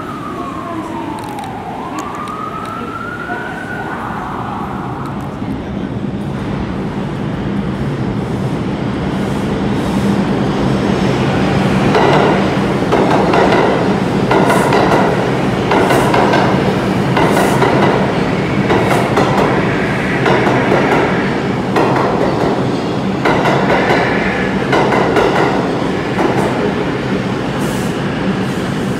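A siren wails up and down briefly, then a New York City Subway train runs through an underground station, getting louder midway, its wheels clacking over rail joints about once a second.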